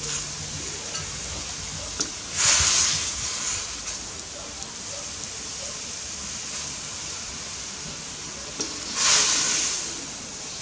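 Water boiling hard in a round-bottom wok over a gas burner, a steady hiss. Twice a sharp click from the slotted spoon is followed by a louder sizzling hiss of about a second as water meets the hot wok.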